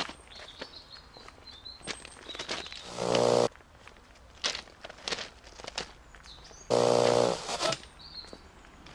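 Footsteps along an overgrown railway trackbed. Twice, about four seconds apart, a loud, harsh, buzzing blast about half a second long cuts in.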